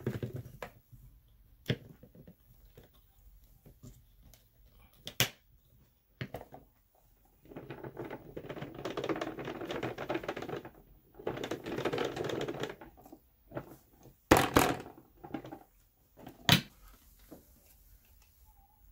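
Rustling and crunching as a heap of fluffy filler is shaken out of a clear plastic container onto a rug, in two stretches of a few seconds. Light plastic clicks and taps come before it, and a few sharp knocks follow near the end; no vacuum motor is running.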